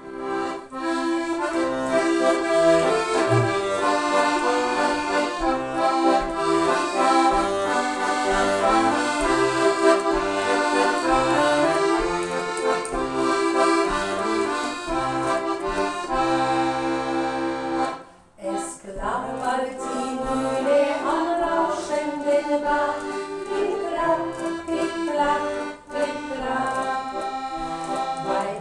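Accordion playing a traditional folk-style tune, with a short break about two-thirds of the way through before the playing resumes.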